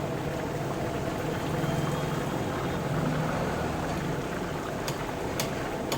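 Deep-frying in hot oil: a steady bubbling and sizzling, with a few short sharp clicks near the end.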